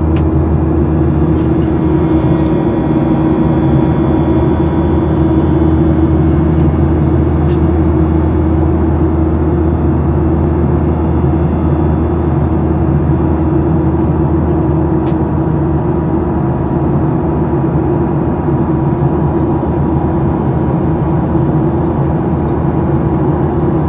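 Steady drone inside an airliner cabin in flight: engine and airflow noise with a constant low hum and a thin steady whine, unchanging throughout.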